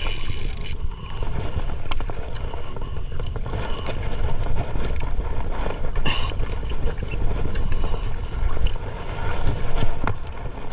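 Wind buffeting the microphone over water noise on a boat at sea, with scattered small clicks and knocks and a louder burst about six seconds in.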